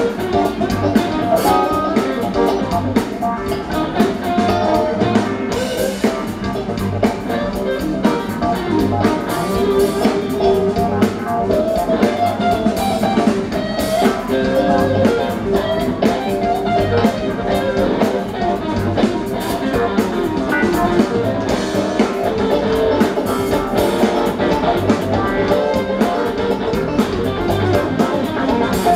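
Live rock band playing an instrumental passage: electric guitars and keyboards over bass and a drum kit with a steady beat.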